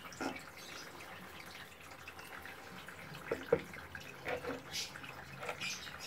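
The last of the water dripping and splashing from a plastic bucket onto wet sand: a few separate drips and splashes, the loudest about three and a half seconds in.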